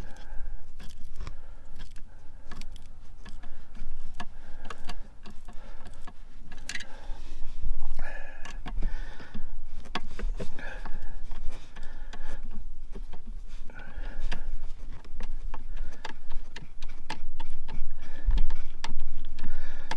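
Scattered small clicks, taps and light metallic rattles of hands fitting and hand-tightening the heater core's coolant pipe connection up under a van's dashboard.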